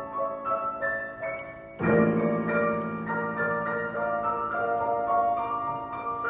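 Grand piano being played: a light passage of higher notes, then a sudden loud full chord with deep bass notes about two seconds in, which rings on under a run of further notes.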